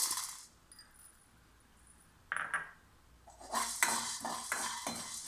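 Black peppercorns being stirred in a dry metal kadai with a metal spoon: a short scrape about two seconds in, then repeated clinks and scrapes of spoon on pan, about three or four a second, from about three and a half seconds in.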